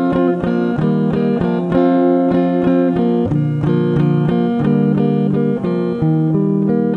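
Background music: plucked string notes in a quick, even rhythm.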